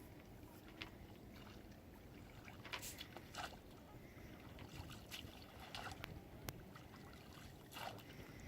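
Faint water lapping and splashing, with scattered small clicks and knocks every second or so.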